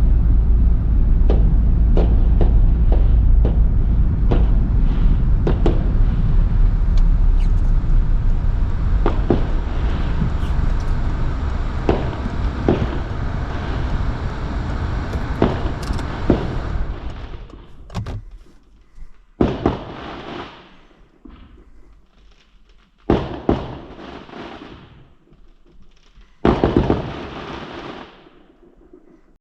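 Fireworks going off: for about the first 17 seconds a dense run of crackling bangs over a heavy low rumble, then four separate bangs, each dying away.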